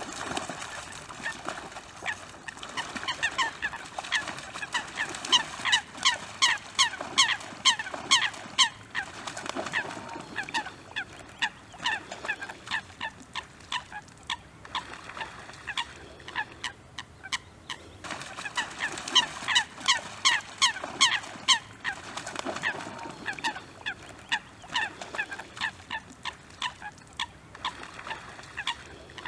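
Eurasian coots fighting on the water: rapid runs of short, sharp calls, several a second, each falling in pitch, with wings splashing on the water. The calls come in two dense bouts, the second starting a little past the middle, with scattered calls in between.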